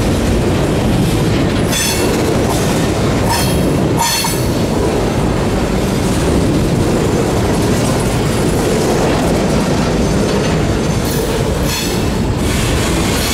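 Freight train of empty centerbeam flatcars rolling past, a loud steady rumble of steel wheels on rail. Short high metallic squeals come about two seconds in, again around four seconds, and once more near the end.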